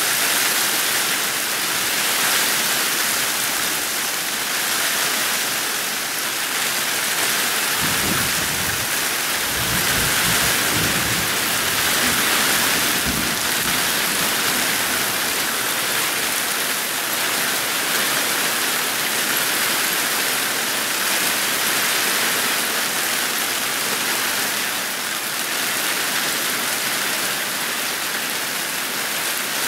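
Steady hiss of a heavy downpour in a storm, with a low rumble of thunder from about eight to thirteen seconds in.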